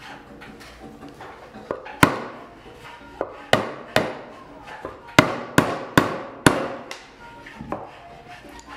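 Wooden mallet striking the end of a chair leg about a dozen times, sharp separate knocks about two a second at their quickest, driving the leg into its socket in the wooden seat while the undercarriage of a Windsor chair is assembled.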